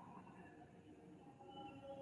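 Near silence: a faint night background with a few faint, steady distant tones.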